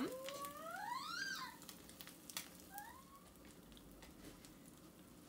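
A cat meowing: one long meow that rises in pitch and then drops, and a shorter one around three seconds in. Behind it are faint scattered crackles from pancakes frying in a cast iron skillet.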